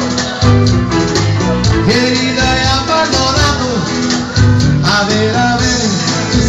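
Latin rock song with a guitar and a steady beat, played loud.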